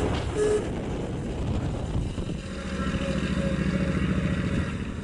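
1957 Chevrolet Bel Air Nomad's V8 engine running as the car drives past and pulls away. The exhaust settles into a steady low drone about halfway through.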